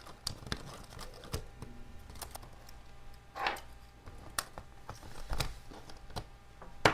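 Irregular light clicks and taps of a replacement battery being handled and pressed into a Samsung tablet's chassis, with a sharper click near the end.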